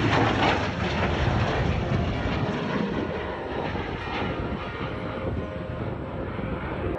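F-16 fighter jet's engine noise, a deep steady rumble that is loudest at the start and slowly fades as the jet climbs away.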